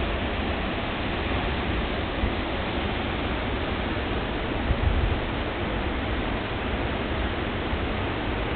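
Waterfall rushing in a steady, even roar of falling water, with a brief low thump about five seconds in.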